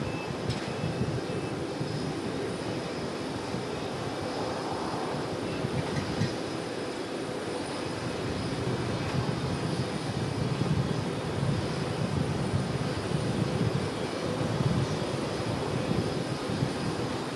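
Jet airliner engines running steadily, a rumbling noise that swells slightly about two-thirds of the way through, under a constant electrical hum from a faulty microphone.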